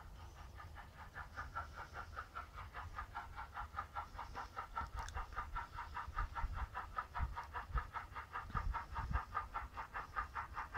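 DCC sound decoder in an OO gauge model of the BR Standard Class 7 steam locomotive 70000 Britannia playing steam-exhaust chuffs through its small speaker. It is a rapid, even beat of about five chuffs a second that grows louder from about halfway as the locomotive approaches, with a few low thumps near the end.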